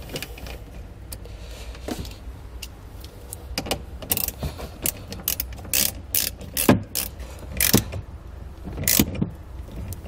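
Hand ratchet with a 12 mm socket clicking in short irregular runs as the flange nut is tightened back down onto the positive battery terminal, with a few louder clicks in the second half.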